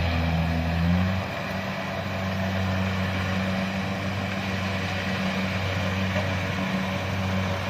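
Kubota DC-70 combine harvester's diesel engine running steadily under an even mechanical noise; the engine note shifts and the level drops slightly about a second in.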